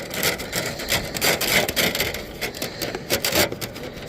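Dryer-vent brush on a flexible fiberglass rod scraping and rubbing inside the vent duct in irregular strokes.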